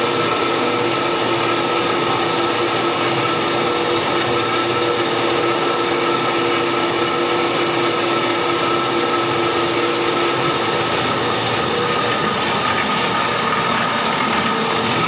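Small electric-motor-driven cattle feed pellet mill running steadily while pressing pellets, a continuous mechanical hum with a few steady whining tones.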